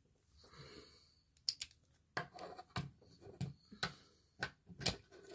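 Plastic parts of a Transformers Studio Series Wheeljack figure clicking and ticking as its joints and panels are handled and moved, in about a dozen irregular sharp clicks after a soft rustle.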